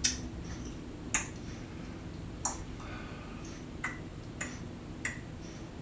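A man clucking his tongue: about six sharp alveolar or post-alveolar clicks, made singly and spaced irregularly about a second apart.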